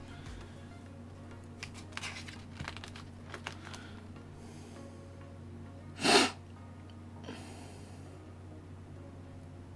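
A spoon stirring and breaking up beef mince in a shallow enamelled pan, with light clicks and scrapes of the spoon against the pan, mostly in the first few seconds. About six seconds in comes one short, loud burst of noise.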